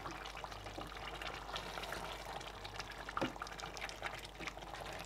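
Thick, oily egusi soup simmering in a pot with a steady fizz and many small crackles and pops, while a wooden spoon stirs through it; one louder tap of the spoon a little past three seconds in.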